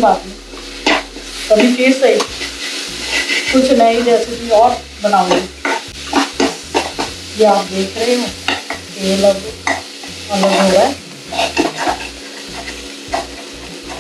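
A metal spatula stirring and scraping a thick onion-tomato masala around a metal kadai, with the masala sizzling in hot oil. Many irregular scrapes come over the steady sizzle. This is the masala being fried until the oil separates.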